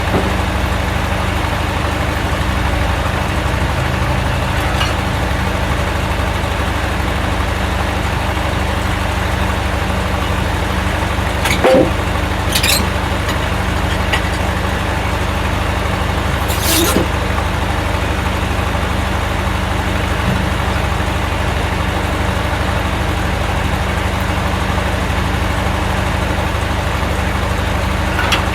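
An engine running steadily with a low, even drone, with a few short sharp clanks about midway.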